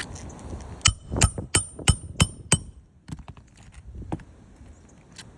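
Hand hammer driving a nail into asphalt roof shingles: six sharp, ringing metal strikes about three a second, followed by a few lighter taps.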